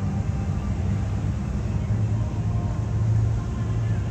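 Boat engine running steadily with a low rumble.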